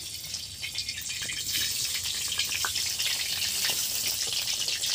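Spice-coated eggplant slices going one after another into hot oil in an iron kadai, sizzling with scattered crackles. The sizzle grows louder as more slices go in.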